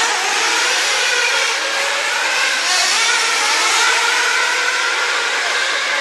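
Several radio-controlled off-road racing cars running at once: a dense high whine from their motors, many pitches rising and falling over one another as the cars speed up and slow down, over a steady hiss.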